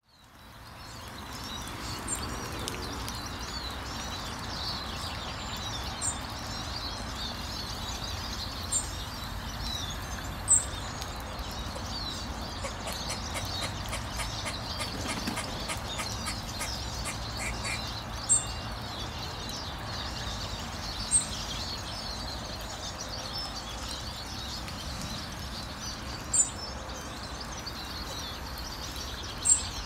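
Grey squirrel alarm calls: about seven sharp, loud single barks a few seconds apart, over steady birdsong and a low outdoor rumble.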